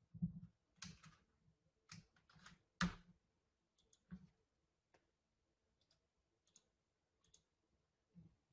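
Faint, irregular clicking at a computer, about a dozen short clicks spread over several seconds, a few of them close together.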